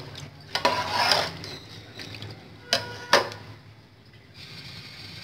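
A spoon stirring rice into stock in a cooking pot: a scrape about a second in, then two sharp knocks against the pot near the three-second mark.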